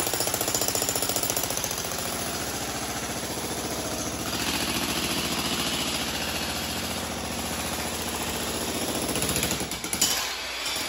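Jackhammer chiseling into a concrete floor slab, a fast, steady hammering that stops near the end.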